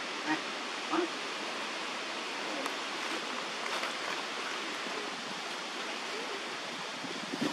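Steady rushing outdoor background noise, even in level throughout, with two brief faint rising calls in the first second.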